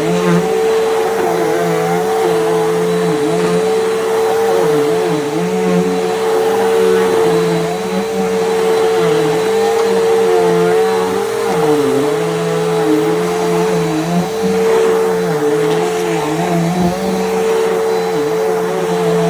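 Bissell PowerGroom bagless upright vacuum running with a steady motor whine, its lower hum wavering every second or so as it is pushed back and forth.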